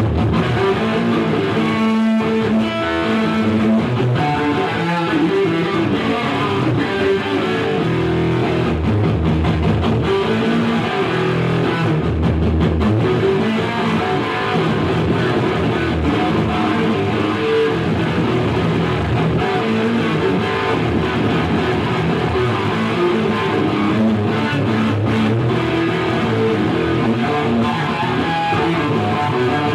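Guitar-driven rock music, with electric guitar and bass, played loud and steady through a Marshall turned up to 10.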